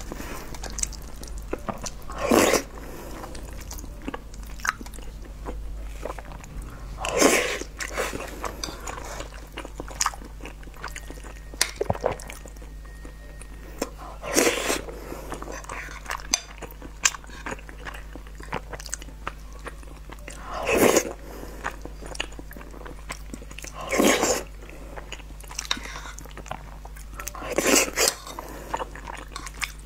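Close-miked eating: soft chewing and mouth clicks, with six louder, short sounds as spoonfuls are taken into the mouth, spaced a few seconds apart.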